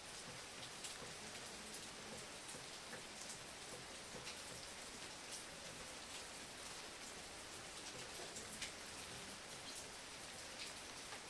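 Steady light rain falling, a soft even hiss with scattered drop ticks.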